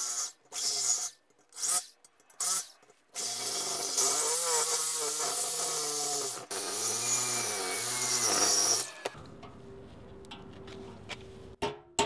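Reciprocating saw cutting a groove through a steel bushing sleeve in a car's rear subframe: a few short bursts of the saw, then a steady cut from about three seconds in to about nine seconds, its motor pitch wavering and briefly dropping out once midway, before it stops.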